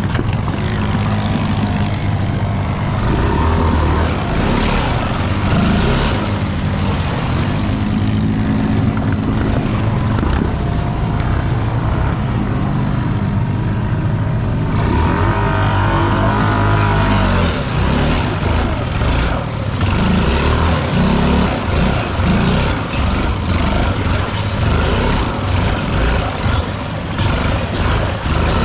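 Off-road vehicle engine running under way, its pitch rising and falling as the throttle is worked. A louder hiss joins about halfway through.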